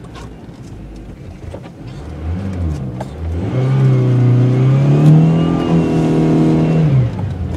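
Honda Civic engine pulling hard under acceleration, its note climbing slowly for about four seconds, then cut off suddenly as the throttle is lifted.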